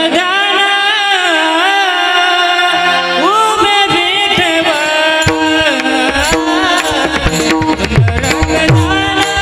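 Devotional kirtan music. A singer holds an ornamented, sliding melody over a steady drone. About five seconds in, a hand drum joins with rhythmic bass strokes that bend in pitch, along with sharp percussive strikes.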